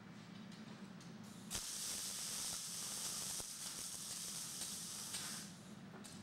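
Wire-fed (MIG) welding arcs of an automatic fence welding machine: a sharp click about a second and a half in, then a steady crackling hiss of the arcs for about four seconds that drops away near the end. A steady low hum runs underneath.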